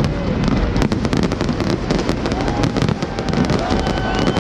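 Fireworks display going off in a dense, continuous barrage of bangs and crackling reports, several a second, over a steady low rumble.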